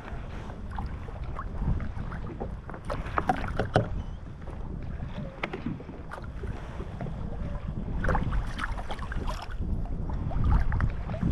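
Wind buffeting the microphone and water lapping against a kayak hull, with scattered small clicks and splashes as a fish is handled and released into the water at the side of the kayak.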